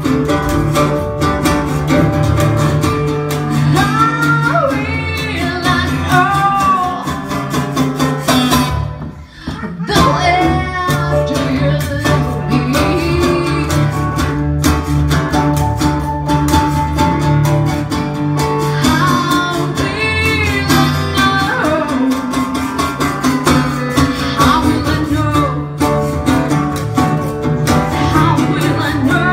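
Live band: a woman sings into a microphone over acoustic guitar and keyboard accompaniment. The music thins out briefly about nine seconds in, then comes back in full.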